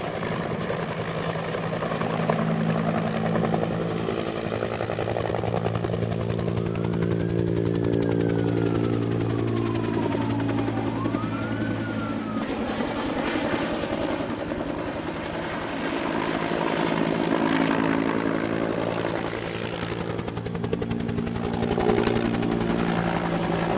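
A steady mechanical drone made of several held tones over a rushing noise, shifting in pitch about halfway through; a thin whistling tone slides down and then back up once in the middle.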